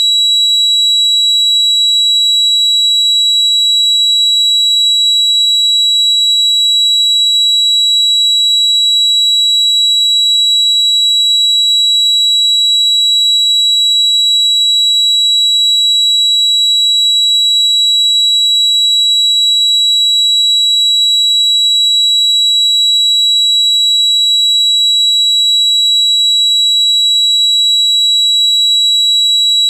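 Tinnitus sound effect: a single steady, unbroken high-pitched ringing tone with a faint hiss above it.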